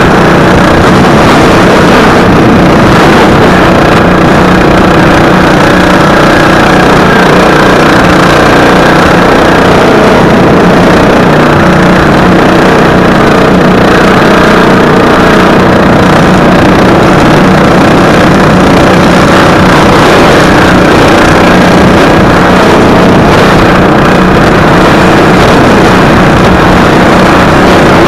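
Racing lawn mower engine running hard at racing speed, loud and steady, as heard from the driver's helmet camera.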